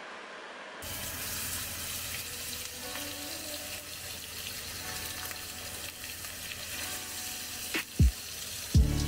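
Steak sizzling in hot oil in a cast-iron skillet over a high gas flame, the sizzle starting about a second in as the meat goes into the pan. Near the end a couple of sharp, loud thumps cut in and music begins.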